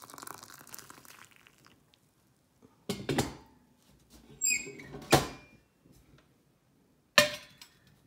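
Hot water pouring from a stainless steel kettle into a ceramic teapot, tailing off about a second and a half in. Then a few separate knocks and clinks, some with a short ring, as the kettle and lids are handled on the Aga range.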